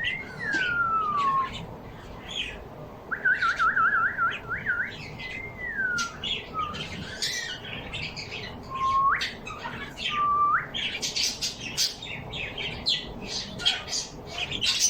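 Pet birds calling: wavering whistled trills and falling and rising whistles, then a dense stretch of quick short chirps in the second half.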